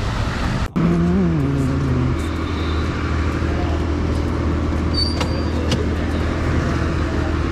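Vehicle engine running steadily, with a brief rise and fall in revs about a second in, just after a short dropout in the sound. A short high beep comes about five seconds in.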